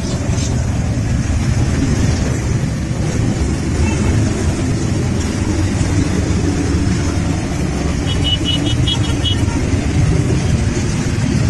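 Many motorcycle engines running together as a large group of bikes rides past, a steady dense rumble. A short run of high chirps comes in about eight seconds in.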